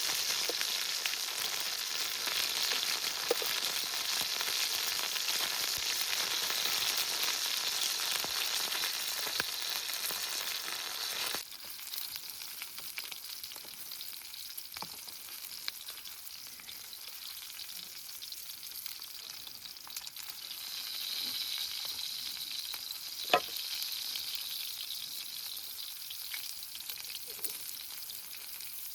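Food sizzling and crackling in a hot frying pan, a steady hiss that drops abruptly to a quieter sizzle about a third of the way in, with a few small sharp ticks.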